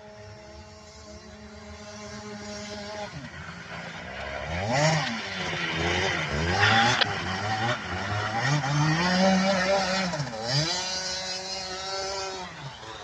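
Go-kart engine running at a steady pitch, then about three seconds in revving up and down over and over as it accelerates and slows on the track. It is loudest in the middle.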